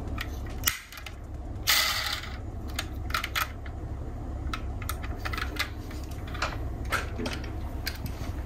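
Irregular small clicks and light knocks of diecast metal model cars being handled, with a brief rustle about two seconds in, over a steady low hum.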